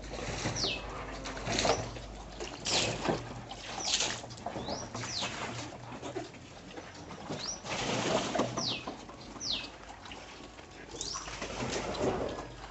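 A bird's short, high calls, each falling quickly in pitch, repeated about once a second, over irregular bursts of rustling noise.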